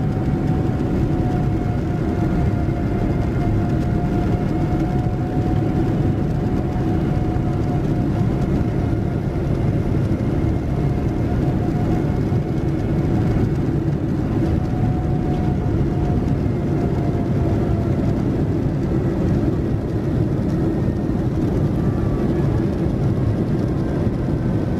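Steady cabin noise of a Boeing 787-9 climbing out, heard from a window seat beside its Rolls-Royce Trent 1000 engine: a dense, even rumble of engine and airflow with a faint whine that drifts slowly in pitch.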